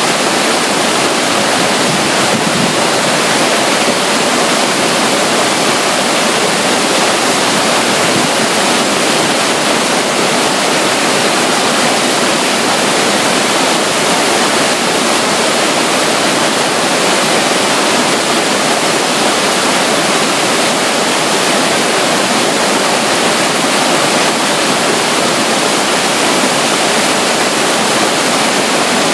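Running water rushing steadily, a small flow at the side of a river near a waterfall.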